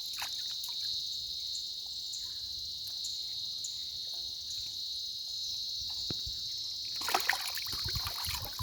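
Steady high-pitched drone of insects over river water. From about seven seconds in, water starts splashing and trickling.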